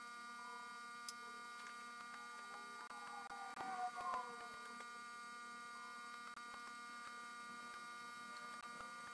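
Low steady electrical hum with a few faint clicks. About three and a half seconds in comes a brief faint squeaking.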